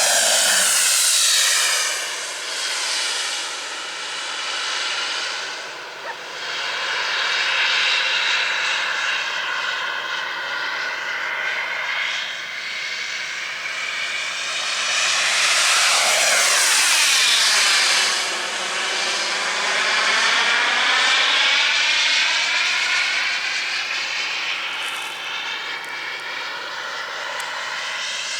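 Jetcat P100RX model jet turbine on an RC F-15 running in flight: a steady jet whine and rushing roar that swells as the plane passes close near the start and again about halfway, its tone sweeping as it comes and goes.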